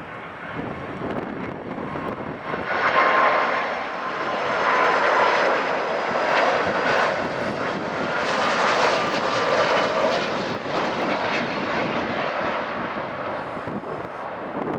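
Boeing 757 jet engines passing close during landing: a loud engine rush that swells over the first couple of seconds, holds loud for most of the time, then eases slightly near the end.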